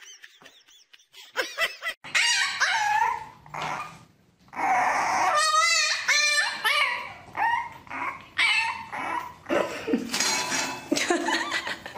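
A puppy yipping and whining in quick high-pitched calls, over and over, from about two seconds in.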